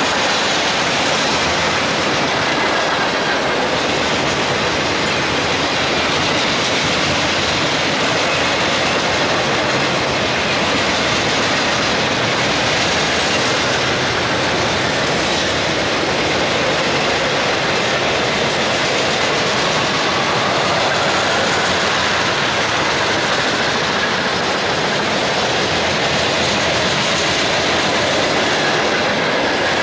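Cars of a manifest freight train rolling past at speed: a steady rumble of steel wheels on rail, with clickety-clack over the rail joints. A faint high-pitched wheel squeal comes and goes.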